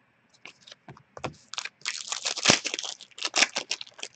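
Trading cards and their plastic packaging being handled: a run of short, irregular crinkles and rustles, loudest around the middle, with one sharp click.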